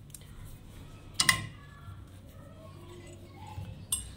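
Two sharp clicks from handling the sewing machine as cloth is drawn out from under its presser foot, one about a second in and one near the end.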